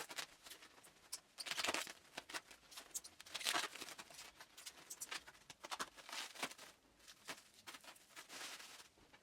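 Faint, irregular rustling and soft clicks, as of hands handling something close to the microphone.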